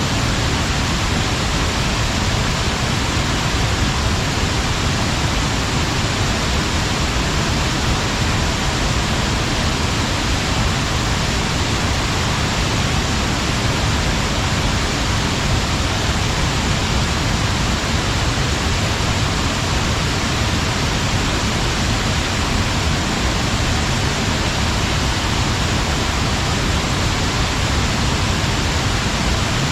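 Water pouring over a weir-dam waterfall: a loud, steady rushing roar with no change.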